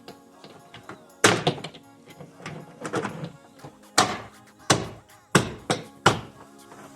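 A series of hard thunks and taps, about six, from plastic trim panel clips being struck into place on an SUV's rear liftgate, with music playing underneath.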